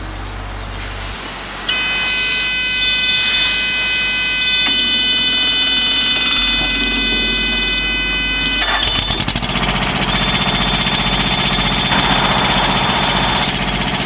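A loud, steady buzzing alarm tone sounds for about seven seconds. About nine seconds in it gives way to an engine starting up and running, with a steady high whine over it.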